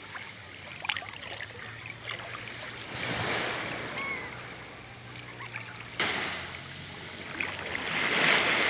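Small sea waves washing up on a sandy beach, with the foaming surf swelling twice, about three seconds in and again near the end, where it is loudest.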